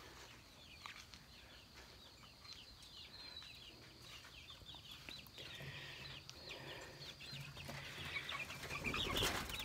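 Young chickens peeping: many short, high, falling calls that grow louder and busier toward the end. A brief loud rustle comes about nine seconds in.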